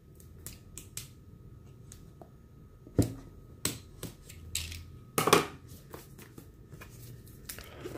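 Utility knife slitting the seal on a paperboard box, then the box being pulled open and handled: scattered clicks, scrapes and sharp snaps, the loudest about three seconds in and again about five seconds in.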